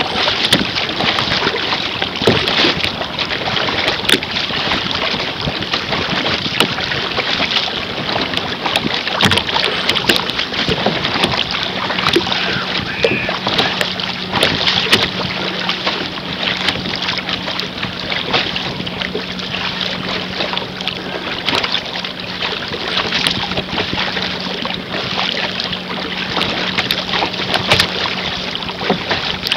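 Water splashing and slapping against a canoe's hull as it moves over choppy water, a constant rushing hiss full of small irregular splashes, with wind on the microphone. A faint steady hum lies underneath from about two seconds in until near the end.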